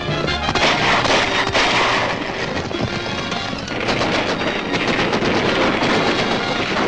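Rapid machine-gun fire mixed with other gunshots, heard over background film music.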